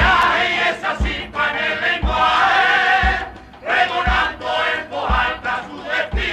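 Cádiz carnival song: a male chorus singing together, with a low drum beat about once a second underneath.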